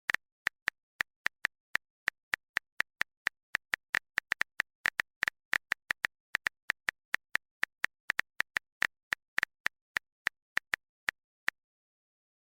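Smartphone keyboard clicks, as when typing a message: a long run of short, sharp, identical taps at an uneven pace of about three to four a second, stopping about a second before the end.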